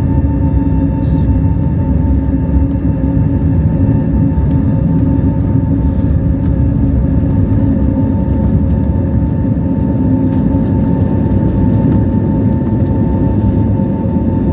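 Airbus A320neo heard from inside the cabin under takeoff thrust: a steady, loud rumble of engines and airflow with steady whining fan tones over it.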